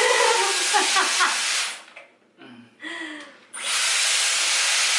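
Dyson hair-styling tool blowing a steady rush of hot air. It stops about two seconds in and starts again abruptly about a second and a half later.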